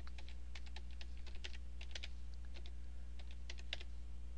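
Computer keyboard being typed on: irregular, scattered key clicks over a steady low electrical hum.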